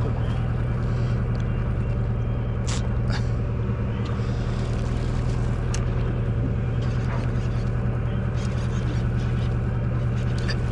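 Party boat's engine running with a steady low drone, joined by a few short sharp clicks about three and six seconds in.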